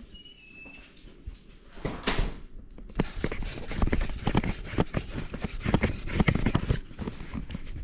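Roofers working on the roof overhead, heard from inside the house: a dense, irregular clatter of knocks, bangs and scrapes that starts in earnest about three seconds in.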